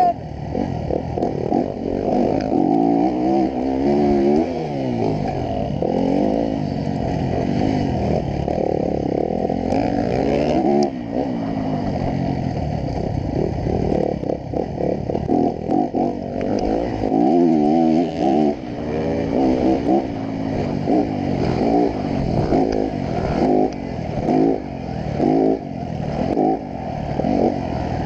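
Dirt bike engine heard from the rider's chest camera, revving up and down as the bike is ridden hard, its pitch rising and falling again and again, in quicker, choppier swings over the second half.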